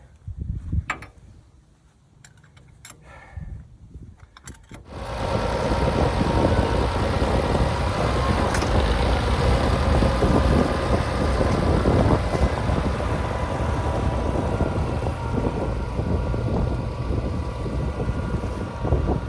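A few light clicks and knocks, then about five seconds in an old tractor's engine running loudly and steadily, with no change in speed.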